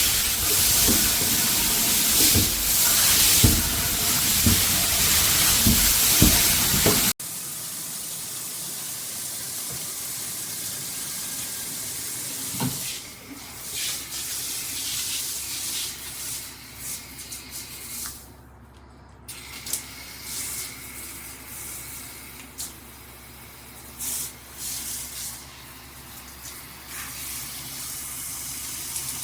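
Water spraying hard from a handheld shower head, a steady loud hiss that cuts off abruptly about seven seconds in. Then quieter handling noise: scattered clicks and knocks.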